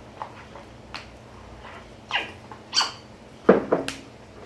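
A pet animal giving a few short cries, between about two and four seconds in, with a few small clicks.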